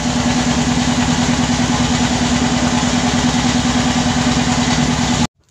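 Wooden fishing boat's inboard engine running steadily under way, a loud, even, rapid beat. It cuts off abruptly near the end.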